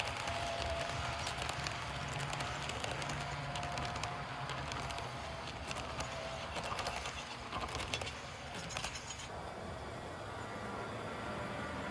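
HO-scale model freight cars rolling past on metal track, their wheels clicking irregularly over the rail joints and curves. The clicking thins out about nine seconds in.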